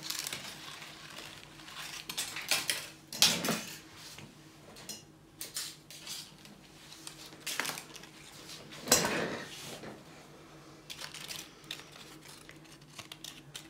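Irregular handling noises: scattered knocks and rustles as craft materials are moved about and picked up, the loudest about three seconds in and again about nine seconds in, over a faint steady hum.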